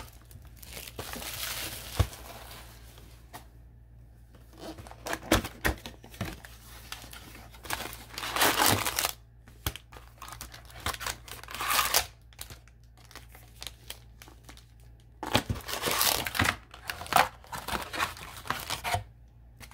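Plastic wrapping crinkling and tearing in irregular bursts, with quieter pauses between, as a sealed hobby box of hockey cards is unwrapped.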